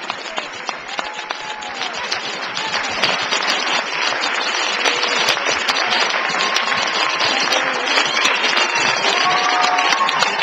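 Audience applauding, a dense patter of clapping that swells about three seconds in, with a few voices calling out over it.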